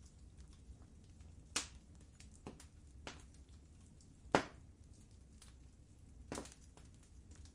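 Fireplace fire crackling: a steady low rumble of burning under a scatter of small crackles, with three sharper pops, the loudest about halfway through.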